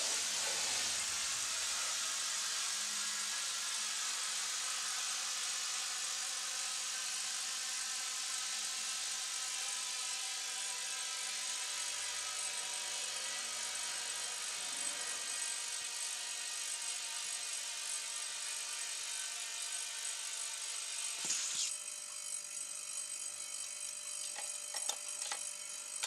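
Steady hiss of compressed air rushing through a blow-gun nozzle into an exercise ball, fed by a homemade air compressor built from an old refrigerator compressor. About 21 seconds in a click is heard and the hiss changes, with a few more clicks near the end.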